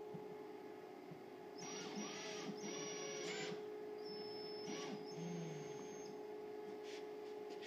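Cordless drill/driver running in four short bursts, driving screws through a paint stick into drywall.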